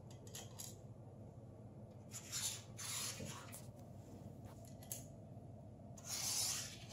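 Faint handling noises of a caster wheel and its metal mounting bracket being turned and positioned on the kart frame: a few short scrapes and rubs, a small click about five seconds in, and a longer scrape near the end.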